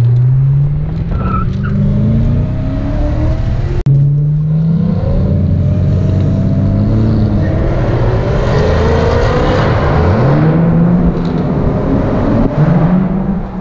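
Car engine accelerating hard through the gears: its pitch climbs, then drops back at each upshift, several times over. There is a sudden break about four seconds in.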